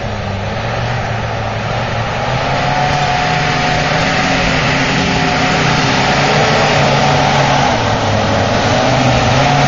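Land Rover Defender's engine running steadily as the off-road vehicle drives along a muddy track, growing gradually louder as it approaches.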